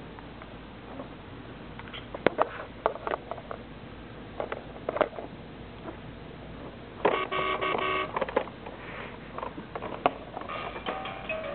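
Plastic toys on a baby's Exersaucer activity center clacking and knocking as the baby bats at them. The tray's electronic toy plays a short beeping tune about seven seconds in, and starts another electronic melody near the end.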